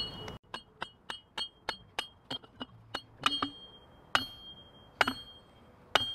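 Metal striking metal, again and again: sharp clinks that each ring briefly at a high pitch. They come about three a second at first, then slow to about one a second.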